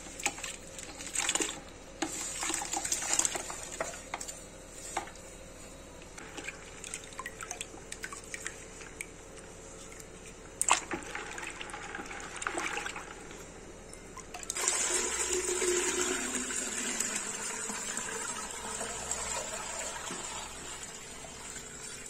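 Crumbled jaggery dropping into a plastic bucket of water, then a hand stirring it, with irregular splashing and sloshing. About fourteen seconds in, a steady pour of the jaggery water through a steel mesh strainer begins.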